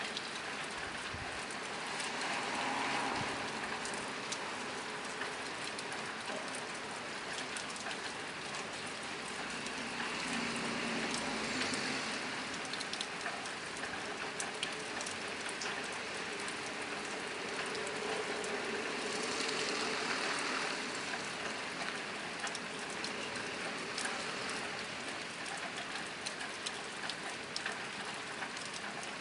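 Steady rain drumming on a tin roof, a dense patter of individual drop taps over a continuous hiss. It swells a little louder a few times, then eases back.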